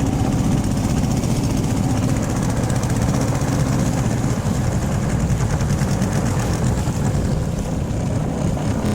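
Small fishing boat's engine running steadily under way, an even, loud drone with a fast regular pulse.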